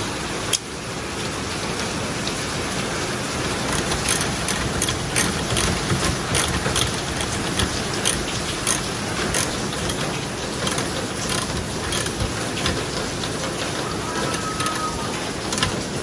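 Ratchet wrench clicking in short irregular runs as a horn's mounting bolt is tightened, over a steady background hiss.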